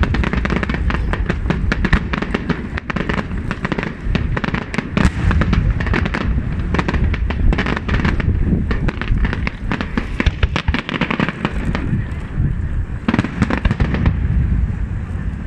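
Aerial fireworks display going off continuously: dense rapid crackling and popping of many shells at once over deep rumbling booms, without a break.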